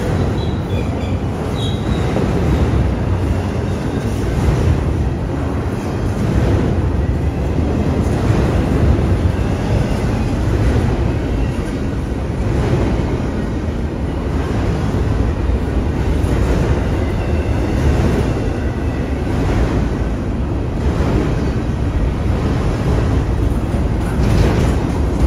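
Norfolk Southern freight train rolling past, a steady loud rumble of car wheels on the rail.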